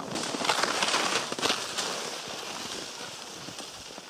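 Crackling rustle of gear being handled close to the microphone, loudest in the first two seconds and then fading.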